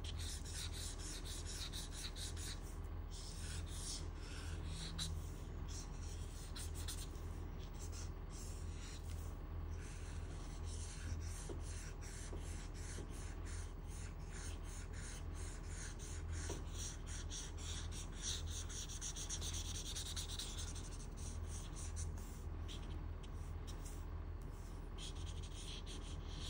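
Felt marker tip rubbing back and forth on paper in many short, repeated strokes: a colorless blender marker blending alcohol-marker shading. A steady low hum runs underneath.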